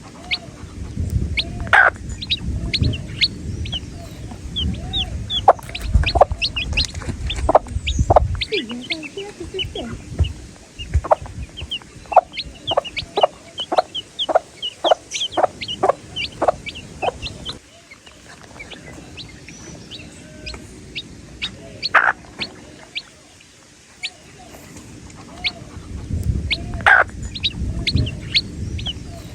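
Baby chicks peeping: many short, high cheeps overlapping, some falling in pitch. A low rumble sits underneath at the start and again near the end, and a regular run of short sharp sounds, about two a second, comes in the middle.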